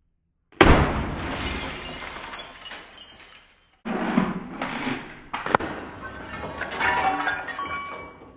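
Glass from a Hamilton Beach microwave shattering under a hit, with a sudden crash about half a second in and a long spray of breaking pieces. A second smash follows from about four seconds in, with two more sharp hits and pieces clinking as they settle. The sound is dull, lacking its highest sparkle.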